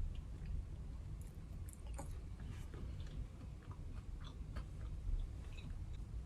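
A person chewing food, with many small clicks and light crunches.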